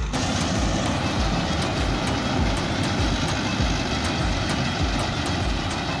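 Combine harvester running close by, its engine and cutting header working as it cuts standing wheat: a loud, steady mechanical din with a regular low throb.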